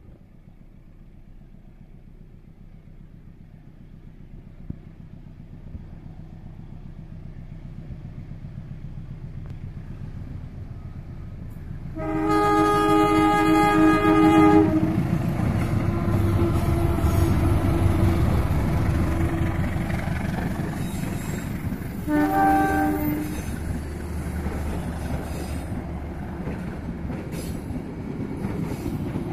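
KAI diesel locomotive hauling the Pasundan passenger train, approaching and passing: the engine rumble grows steadily louder, a long horn blast sounds about twelve seconds in and a short second blast about ten seconds later, then the coaches roll past with their wheels running over the rails.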